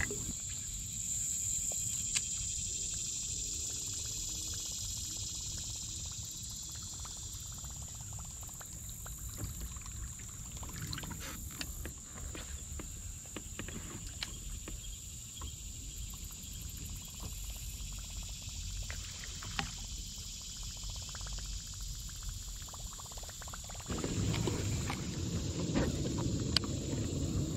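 Fishing kayak moving quietly along a river: a low, steady water and hull rumble with scattered light knocks, under a constant high-pitched whine. Near the end, louder rustling and handling noise as a baitcasting rod and reel are picked up.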